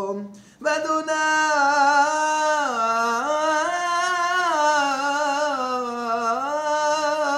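A man's solo voice chanting Torah cantillation in the Constantine Jewish tradition. After a short breath below a second in, he holds one long ornamented vowel that steps up and down in pitch.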